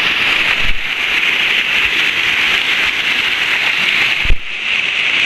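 Creek water rushing steadily over a natural rock water slide, heard close up, with a thump about four seconds in.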